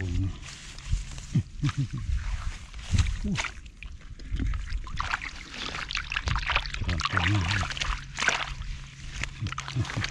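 Water splashing and sloshing in irregular short bursts, as of someone working by hand in shallow water.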